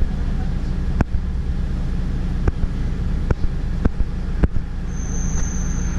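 A Mercedes-Benz city bus engine running with a steady low rumble, heard inside the cabin. Several sharp clicks or knocks sound through it. Near the end a steady high-pitched tone sounds for about a second.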